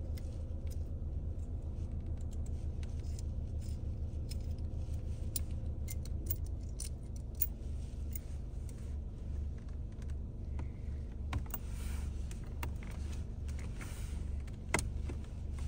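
Small clicks and light rattling from a metal phone-mount base being pushed and worked into the seam of the dashboard trim above the air vent, with a couple of sharper clicks near the end, over a steady low hum inside the car.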